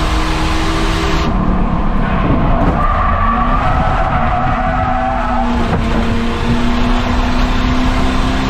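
Race car engine running hard at a near-steady pitch around an oval, with tires squealing for a couple of seconds in the middle.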